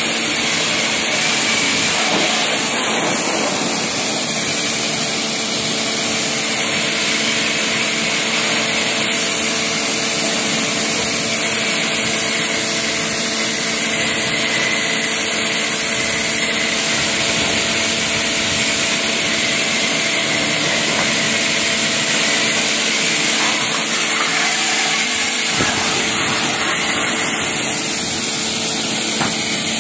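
Pressure washer running continuously: a steady motor hum under the hiss of the high-pressure water jet spraying onto the trays.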